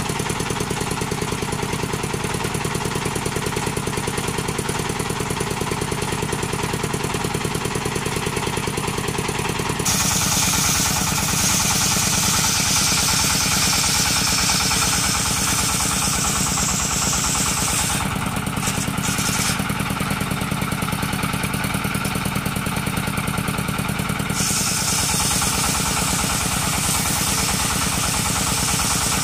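Engine-driven circular saw running steadily. About ten seconds in, a higher rasping sound joins as the blade cuts lengthways through coconut wood, and it eases off about fifteen seconds later.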